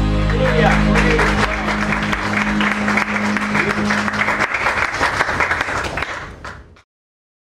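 The last held chord of a worship song rings on under audience applause. The music stops about four and a half seconds in, the clapping fades out, and it cuts to silence near the end.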